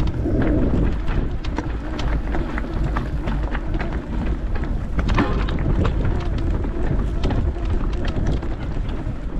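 Wind buffeting the microphone with a low rumble, over a steady scatter of clicks and crunches from a mountain bike rolling over a stony trail.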